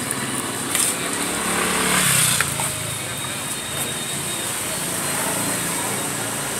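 Street traffic of motorbikes and scooters running past, a steady noisy hum with a couple of light clicks about one and two and a half seconds in.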